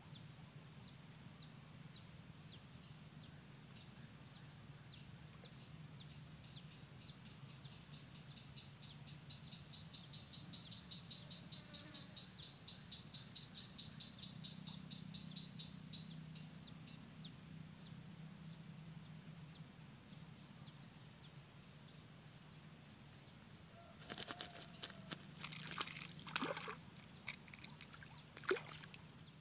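A small hooked fish, a climbing perch, thrashing and splashing at the water's surface near the end as it is reeled in, in a run of sharp, irregular splashes. Before that only a steady high-pitched drone with soft regular chirps, about two a second.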